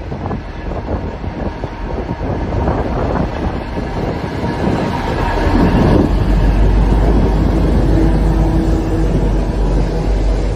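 Freight train passing close by: two Qube diesel-electric locomotives go past with the loudness rising to a peak about halfway, and a low steady engine drone sets in as they draw level. The tank-container wagons then roll past with steady wheel and rail rumble.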